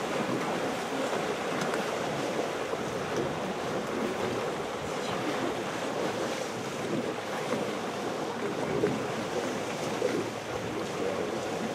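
Steady sloshing and splashing of water as a herd of African elephants wades through a shallow river channel, with wind buffeting the microphone.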